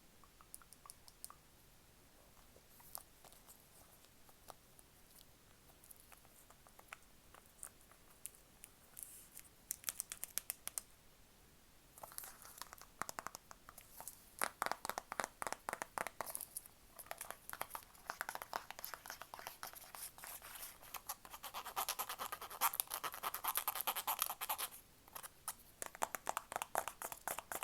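Close-miked ASMR tapping and scratching on objects: sparse soft clicks at first, then from about halfway in a dense run of rapid taps and scratches that grows loudest near the end.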